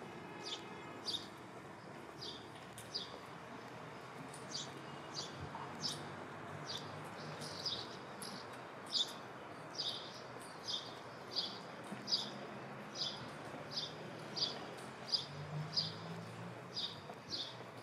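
A small bird chirping over and over, short high chirps at about two a second, over a faint steady background hum.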